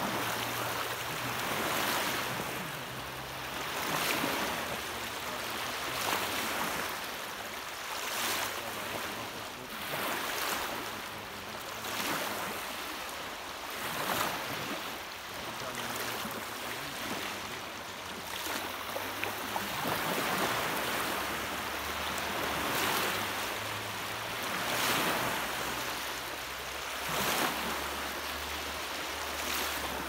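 Small waves breaking and washing up a sandy shore close by. The surf swells and falls back roughly every two seconds.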